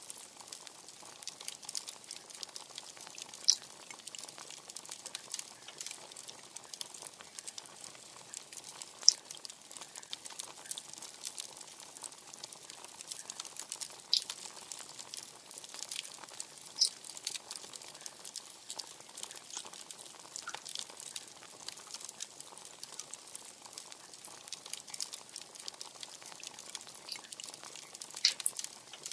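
Wood fire crackling steadily, with a dense hiss of small crackles and a few sharp, louder pops scattered through.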